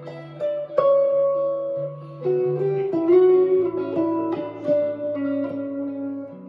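Danocaster Telecaster-style electric guitar with Ron Ellis JL pickups, played clean: a slow line of plucked single notes and small chords that ring on into each other.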